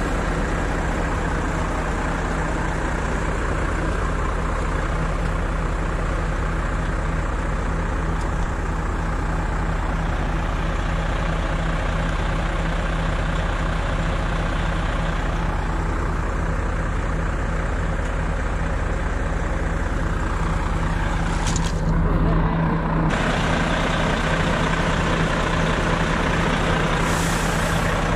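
Heavy diesel engines running steadily at idle, from mining heavy equipment, a big bulldozer and a lowboy truck. About three-quarters of the way through there is one brief sharp sound.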